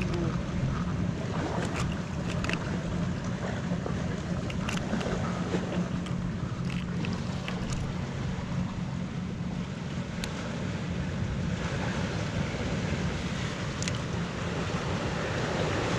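Sea waves washing against shore rocks, with wind on the microphone and a steady low hum underneath; a few small clicks of handling scattered through.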